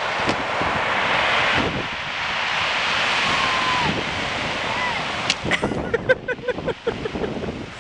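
Surf breaking and washing over a shingle beach of rounded pebbles, with wind buffeting the microphone; the wash swells for the first few seconds, then gives way near the end to a few sharp clicks and brief voice sounds.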